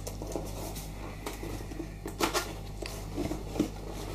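Hands handling a cardboard laptop box: light rubs and taps on the cardboard, with a louder scrape a little after two seconds in.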